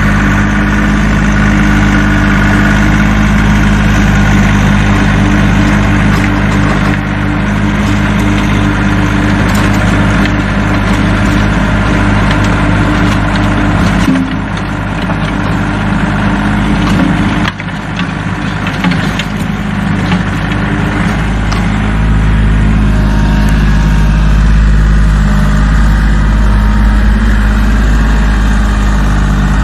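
Kioti CK3510 SE tractor's three-cylinder diesel engine running steadily under load while driving a PTO-powered rotary tiller through the ground.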